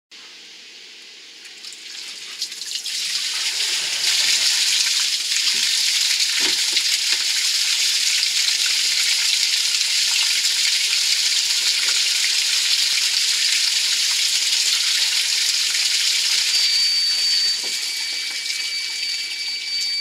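Muddy water gushing out of the open end of a disconnected PVC sump pump discharge pipe and splashing against the concrete basement wall, building up over the first few seconds and then running steadily.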